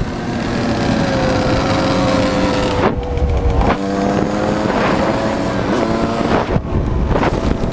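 Dirt bike engine running at speed, heard from on the bike. Its steady note breaks off briefly about three seconds in and again about six and a half seconds in, then climbs in pitch again.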